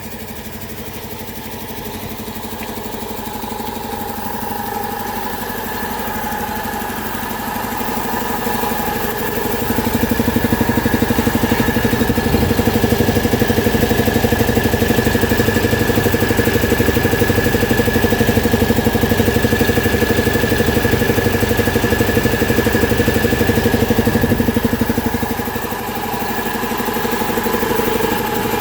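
Airka borewell air compressor running steadily with a mechanical hum. It grows louder over the first ten seconds, holds, then drops back a little near the end.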